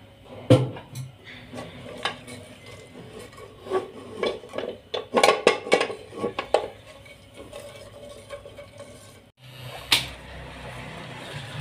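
Wooden spoon stirring and knocking against the sides and bottom of an aluminium pressure cooker while whole spices fry in oil. There is a sharp knock about half a second in and a quick run of knocks around the middle.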